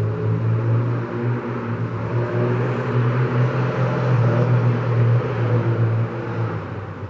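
A motor vehicle's engine running close by with a steady low hum, loudest about four to five seconds in and fading away near the end.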